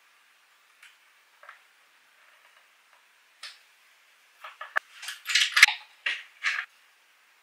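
Workbench handling noises: a few faint clicks, then, about four and a half seconds in, some two seconds of sharp knocks and clattering as the wooden hold-down clamps and the hinged pine board are worked loose.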